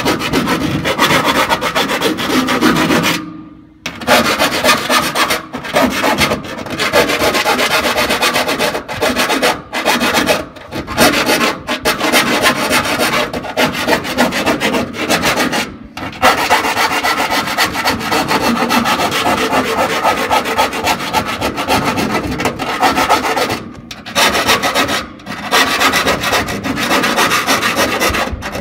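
Edges of freshly drilled holes in a tank wall being cleaned of burrs, a steady rasping and scraping that stops briefly a few times.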